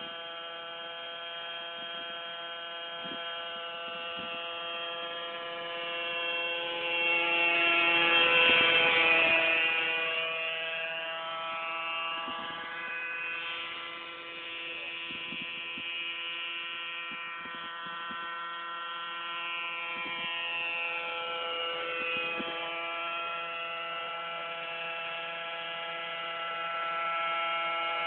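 Radio-controlled helicopter flying, its motor and rotors giving a steady high whine. About seven seconds in it grows loud and sweeps in pitch as it passes close, then settles back to a steady whine.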